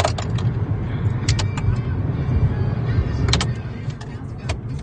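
Mazda 3 engine running, a steady low note with sharp, irregular clicks and knocks over it: an engine with rod knock.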